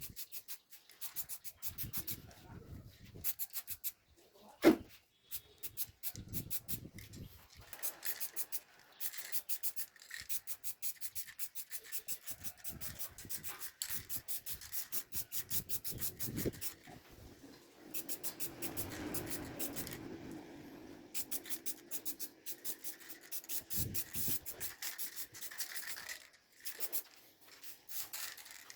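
Rapid runs of short rubbing or scraping strokes by hand on a small workpiece, several strokes a second, in bursts with short pauses, and one sharp knock about five seconds in.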